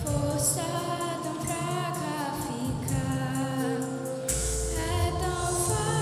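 Children's and youth choir singing a song, a girl's voice on a handheld microphone leading, over music accompaniment; a deep steady bass note comes in about four seconds in.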